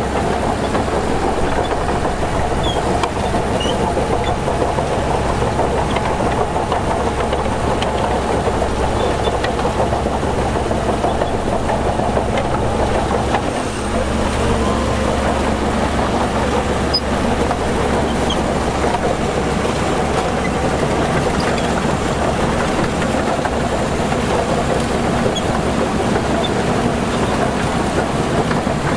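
Heavy diesel earthmoving machinery running steadily under load, its engine giving a constant low drone, with a brief dip in level about fourteen seconds in.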